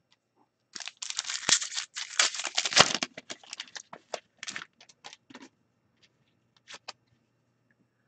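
A foil trading-card pack being torn open and crinkled by hand. It makes a dense run of tearing and crackling for about two seconds, then scattered crinkles as the wrapper is worked off the cards.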